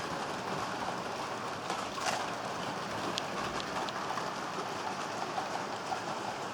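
Model train running along the track: a steady rolling hiss from the wheels and motor, with small clicks as the wheels cross rail joints and a sharper click about two seconds in.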